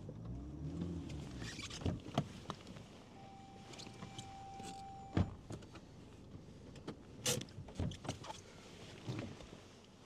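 Pickup truck engine revving up and back down once, followed by a series of scattered clicks and knocks. A steady tone sounds for about two seconds and is cut off by a knock.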